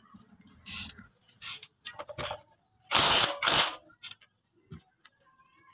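Ratchet wrench clicking in about six short strokes as it runs down the centre nut holding the magneto flywheel on a Honda TMX 155 engine.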